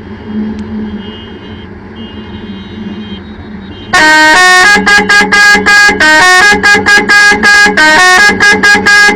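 Chevrolet Silverado's 12-melody musical air horn playing a fast tune of short, loud notes at changing pitches. It starts about four seconds in, after a steady low hum.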